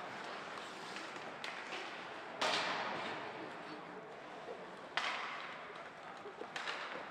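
Ice hockey play in an indoor rink: two sharp cracks of puck and stick impacts, about two and a half seconds apart, ringing through the arena, with lighter stick clicks over a murmur of distant voices.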